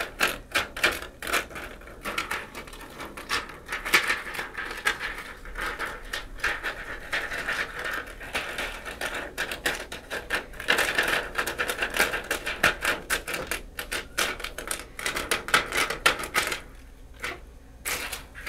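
Peel-off lip gloss slime being stretched and squeezed by hand, giving off rapid, irregular crackles and clicks that sound like plastic packaging. The crackling eases off briefly near the end.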